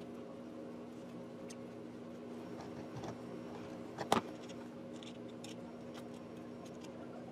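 Light clicks and scrapes of a screwdriver and a steel shaft with nuts being handled on a board, with one sharp clack about four seconds in. A steady low hum sits underneath.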